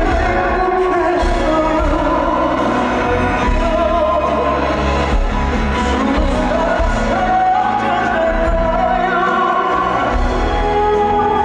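Live ballad music: long held sung notes over full band accompaniment.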